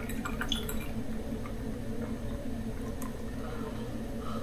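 A few light clicks and small handling noises from kitchen work over a steady low hum.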